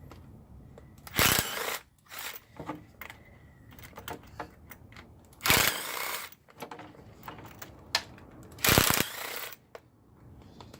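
Cordless power drill or driver backing out screws in three short bursts a few seconds apart, with small clicks and knocks of tool and metal handling between.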